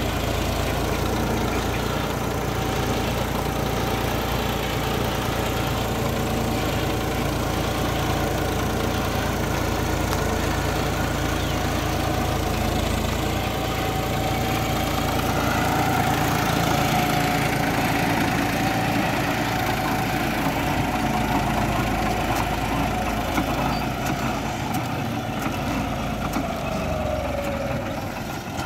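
John Deere 5050E tractor's three-cylinder diesel engine running steadily under load, pulling a cassava planter through tilled soil. A steady high tone runs through the engine sound and sags in pitch near the end.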